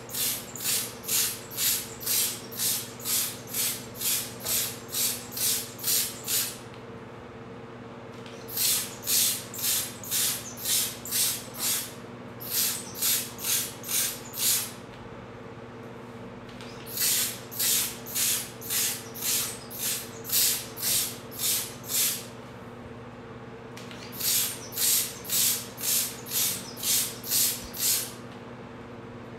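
Hand-pump cake-paint sprayer puffing liquid cobalt-blue edible paint onto a cake in quick hissing spurts, about two a second. The spurts come in runs of several seconds with short pauses between them. A steady low hum sits underneath.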